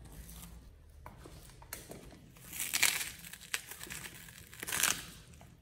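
A sneaker sole pressing down on a whole pear, the fruit cracking and crunching twice: once about three seconds in and again near the end.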